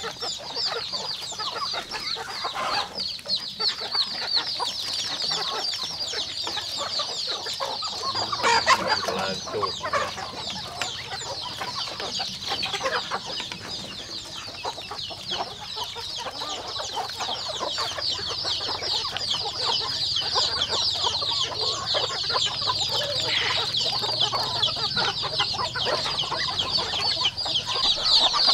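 A flock of chickens clucking, over a steady high chorus of many chicks peeping.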